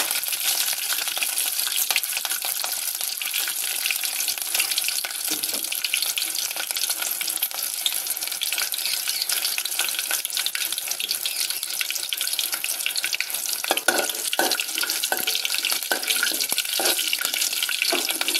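Green chillies and curry leaves sizzling steadily in hot oil with popped mustard seeds in a metal pan. From about three-quarters of the way in, a metal spoon stirs and knocks against the pan.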